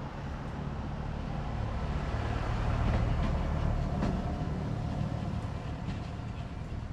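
A vehicle's low, steady rumble, swelling to its loudest about three seconds in and then easing off.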